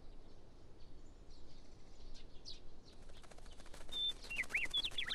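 Small birds chirping in short high calls that bend up and down, coming in about four seconds in. Under them is a fast, faint clicking that starts about three seconds in.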